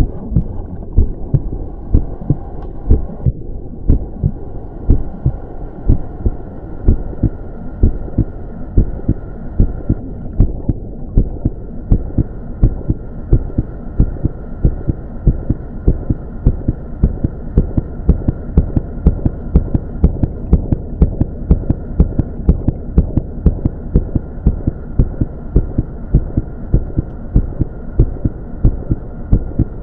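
Regular heartbeat-like thumping, about two beats a second, over a steady low hum.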